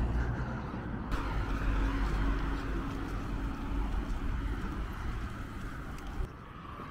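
Street noise from road traffic going by on a wide city road.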